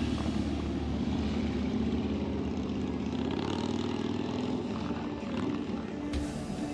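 Motorcycle engine held at high revs during a burnout, the rear tyre spinning against the pavement.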